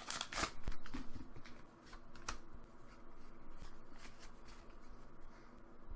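Pokémon trading cards being handled, with soft rustling and small clicks of cards sliding against each other. The sound is busiest in the first second, then thins to scattered light clicks.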